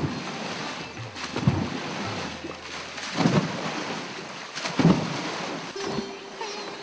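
Foaming indigo-leaf water in a dye tank splashing and churning as workers beat it by hand to ferment it. Heavy splashes come about every one and a half seconds over a steady rush of water. A steady musical tone comes in near the end.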